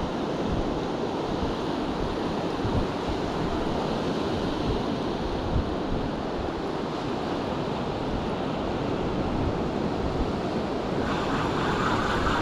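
Surf breaking and washing steadily on a beach, with wind buffeting the microphone in low rumbling gusts.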